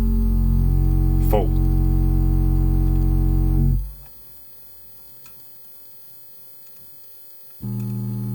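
Steady low bass test tone played through a car stereo, with the Kenwood KSC-SW11 underseat subwoofer switched to full, picked up by a camera microphone. The tone cuts off about four seconds in, leaving near silence. A quieter low tone starts near the end.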